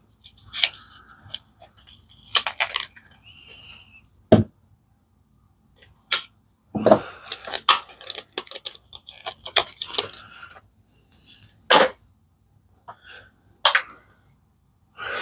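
Handling sounds from a folding pocket knife and its packaging: scattered sharp clicks and snaps with stretches of rustling. A few louder clicks come near the middle and again toward the end.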